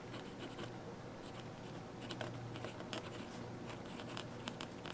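Amazon Basics fountain pen's medium nib scratching faintly on notebook paper in short, separate strokes as capital letters are printed.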